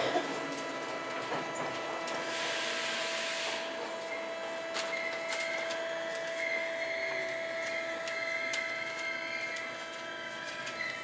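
Tokyo Metro 8000 series electric train running, heard from above its Mitsubishi armature thyristor chopper control unit: a steady chopper whine of several fixed tones, the strongest fading near the end. A burst of hiss comes about two seconds in and lasts over a second, and scattered clicks run through it.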